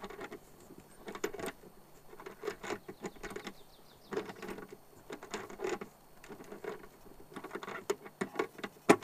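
Pliers clicking and rattling against a barrel lock's nylon-insert locking nut as it is turned a few turns at a time on an RV baggage-compartment door, in several short bursts of small metal clicks, with one sharp click near the end.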